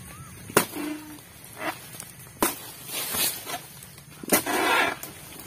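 Oil palm harvesting chisel (dodos) on a long pole striking into a palm frond base: three sharp chopping hits about two seconds apart, each with a rustle of palm fronds, the longest rustle right after the third hit as the cut frond shifts.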